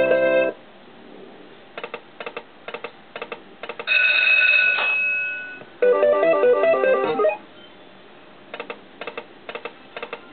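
Aristocrat Buffalo slot machine's electronic game sounds during free spins. Quick runs of clicks come as the reels spin and stop, then a bell-like chime lasting about a second. A short stepped-note tune plays as a win tallies onto the meter, and the reels click again near the end.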